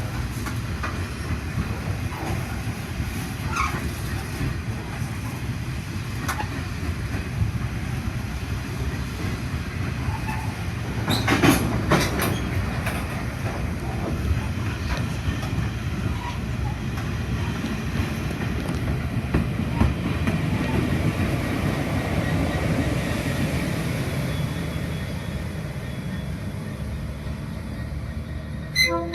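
A freight train's wagons rolling past on the rails, with a steady rumble and faint clickety-clack over the rail joints. There is a brief louder rattle about eleven seconds in, and a train horn starts at the very end.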